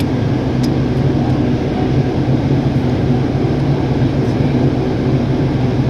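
Steady low mechanical drone of a machine running nearby, unchanged throughout, with a faint click about half a second in.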